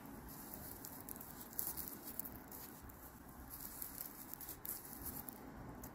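Faint rustling and light irregular ticks of raffia yarn drawn through stitches by a crochet hook during single crochet.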